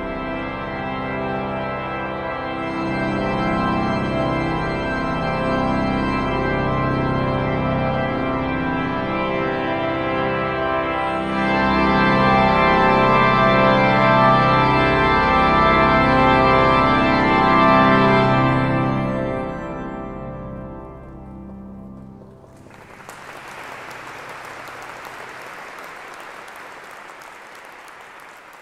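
Cathedral pipe organ playing sustained chords that grow louder and brighter about halfway through, then the final chord cuts off and dies away in the building's long reverberation. An audience then breaks into applause.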